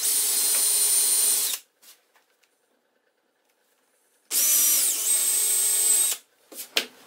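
Power drill with a step bit boring two holes through plywood into the sled's runners: two runs of a steady whine, about a second and a half and about two seconds long, with a pause between them.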